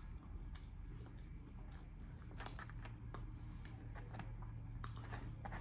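A person chewing barbecue food close to the microphone, with irregular small mouth clicks and smacks.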